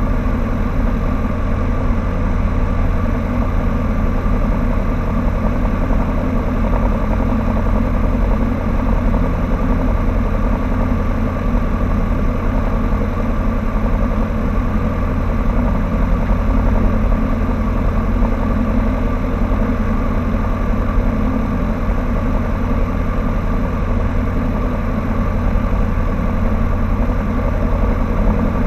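A Cessna 152's four-cylinder Lycoming engine and propeller idling steadily, heard from inside the cockpit.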